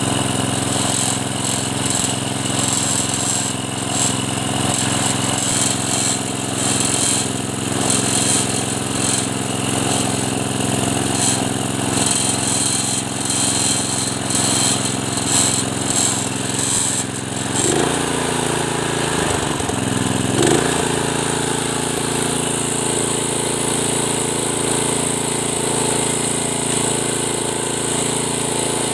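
Small single-cylinder Briggs and Stratton petrol engine on a concrete power trowel running steadily. About two-thirds of the way through its speed sags briefly and picks up again.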